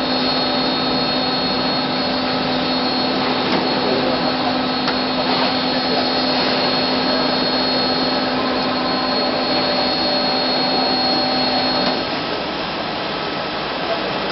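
Hydraulic injection moulding machine running: a steady mechanical hiss and hum with several whining tones. About twelve seconds in, one tone stops and the noise drops slightly.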